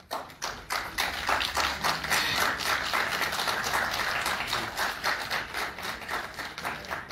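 Audience applause, many hands clapping, rising quickly at the start and fading over the last couple of seconds.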